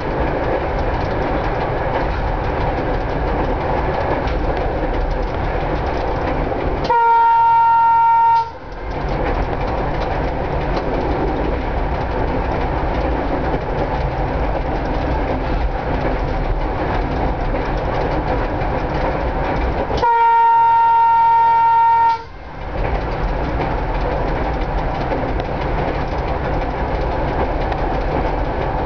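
Cab interior of a 1960s FIAT diesel railcar running at speed: steady rumble, wheels clicking over rail joints and the constant ticking of the electromechanical speedometer/odometer. The railcar's horn sounds twice, each a single-note blast of about a second and a half to two seconds, about 7 s in and again about 20 s in.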